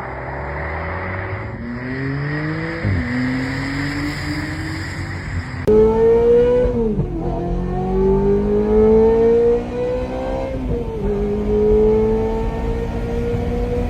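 Sports car engine accelerating hard through the gears: its pitch climbs and drops back at each upshift, three times. The engine gets abruptly louder about six seconds in.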